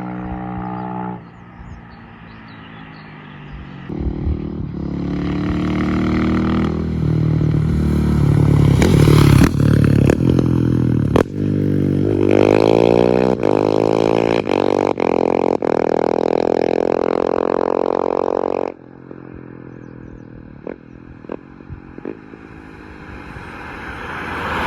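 KTM 690 SMC R single-cylinder engine, straight-piped through an FMF 4.1 exhaust and Tekmo header with no catalytic converter or dB killer, accelerating hard, its pitch climbing in steps as it shifts up through the gears. It then holds high revs, the pitch sweeping down and back up as the bike passes, before cutting off suddenly about 19 seconds in. After that the engine is quieter, with a few sharp pops, and rises again near the end.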